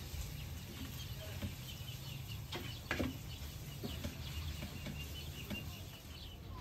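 A wooden spatula stirring and scraping food frying in a metal pan, with scattered knocks against the pan, the loudest about three seconds in. Hens cluck and small birds chirp around it.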